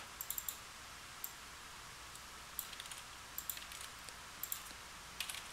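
Faint typing on a computer keyboard: a few short clusters of keystroke clicks with pauses between them.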